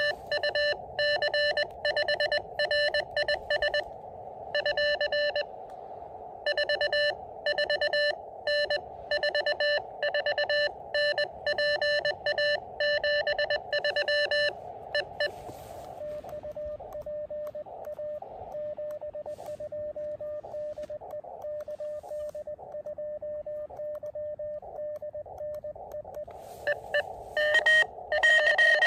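Morse code (CW) from an Elecraft KX2 transceiver: a loud keyed single-pitch tone for about fifteen seconds, then a fainter Morse signal at the same pitch over receiver hiss, then loud keying again near the end. The exchange of loud and faint keying fits the operator sending, then another station answering, in a CW contact.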